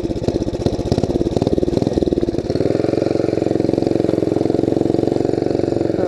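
Small gas mini bike engine idling with an uneven pulsing beat. About two and a half seconds in it picks up speed and settles into a steady, even run as the bike pulls away.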